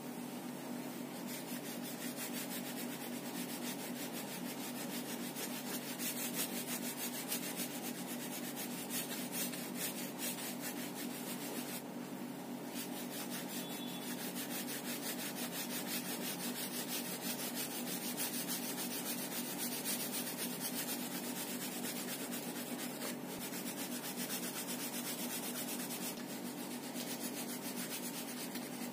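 Oil pastel rubbed quickly back and forth across paper in steady, scratchy shading strokes, over a steady low hum.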